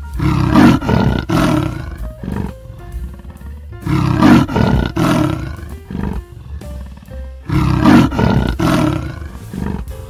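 Leopard's rasping, sawing call: three bouts of harsh grunts, each about two seconds long and a few strokes deep, coming roughly every three and a half seconds.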